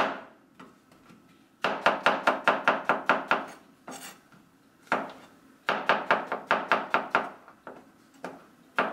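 Chef's knife slicing button mushrooms thinly on a plastic cutting board: quick runs of knife taps against the board, about six a second, in three bursts with short pauses between.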